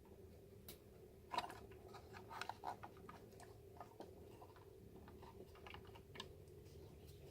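Faint, scattered clicks and light taps of hands handling the hanging humidifier while refilling it, with the busiest stretch about one to three seconds in, over a faint steady hum.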